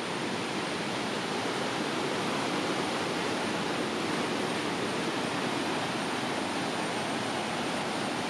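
Rushing whitewater of a rain-swollen forest stream pouring over rocks and small cascades: a steady, full rush of water.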